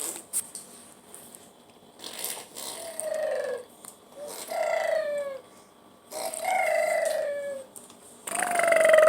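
An animal calling four times, each a pitched call that falls in pitch; the last call, near the end, is the longest and loudest.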